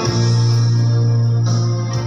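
Instrumental accompaniment: a held chord with a strong, steady low note, changing just before the end.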